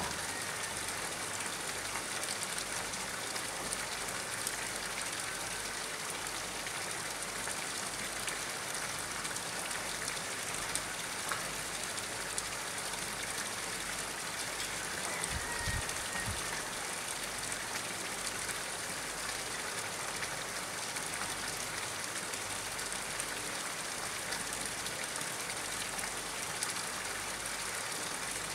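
Steady hiss and patter of water falling onto a pond's surface.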